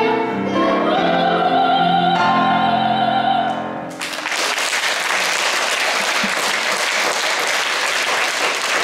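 A soprano and young voices singing with piano end a song on a long held high note, which stops about four seconds in. Then the audience applauds steadily.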